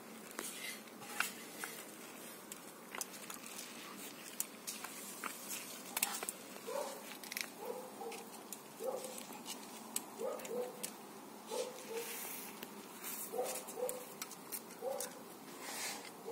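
A pet's short, high calls, often in pairs and about one a second, starting about six seconds in, over light scattered tapping and scuffing.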